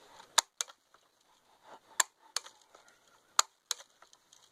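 Sportsman 900 air rifle being pumped: three strokes about one and a half seconds apart, each a pair of sharp clicks from the pump lever going out and back.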